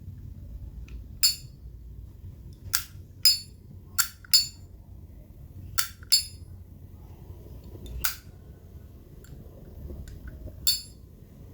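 A vintage 1966 Zippo lighter's hinged metal lid flipped open and snapped shut several times: sharp metallic clinks, several in quick pairs about half a second apart.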